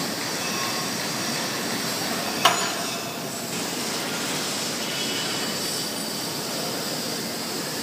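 Steady din of a locomotive repair workshop, with one sharp metal clank about two and a half seconds in.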